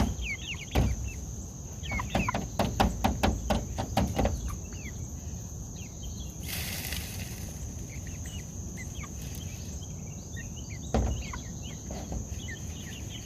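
Backyard outdoor ambience: small birds chirping and a steady high insect drone. A quick run of knocks comes about two to four seconds in, then a brief hiss, and a single thump near the end.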